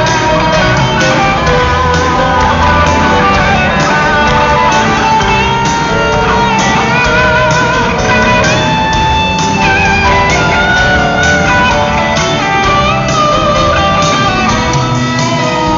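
A rock band playing live at full concert volume, with guitars prominent, heard as a phone in the audience picks it up.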